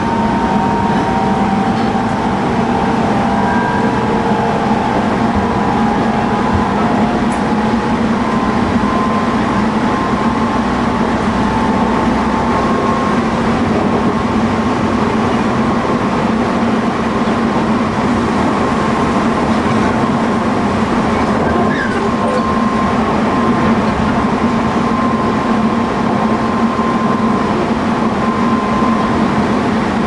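Tobu 20050 series electric train running, heard aboard motor car MoHa 23854. The GTO-thyristor VVVF inverter and traction motors give thin steady tones over the constant rumble of wheels on rail.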